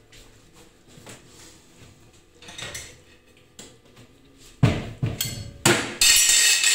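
Ceramic plates clinking and clattering as they are taken out to serve: a few sharp knocks about half a second apart, then a longer, louder rattle near the end.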